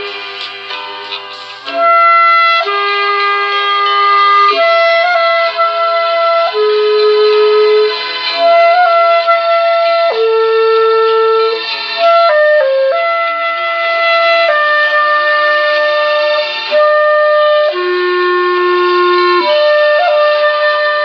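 Clarinet playing a slow melody of long held notes.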